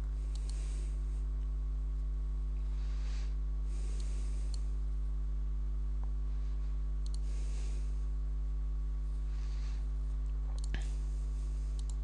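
Steady low electrical hum, with a few faint clicks from a computer keyboard and mouse.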